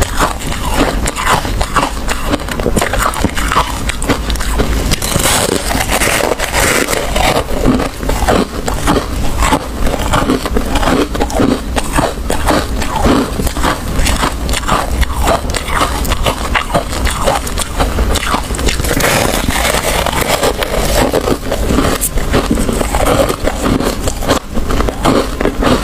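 Freezer frost crunching as a slab of it is bitten and chewed close to a clip-on microphone: a dense, unbroken run of crisp little crunches and crackles.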